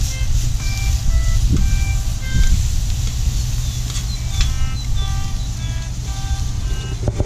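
A tune of short, separate high notes over a steady low rumble.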